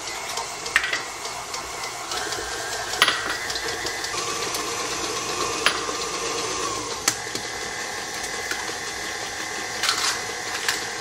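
Electric stand mixer running steadily, beating creamed butter and sugar as eggs go in one at a time. Several sharp taps and clicks, eggs being cracked against a glass bowl.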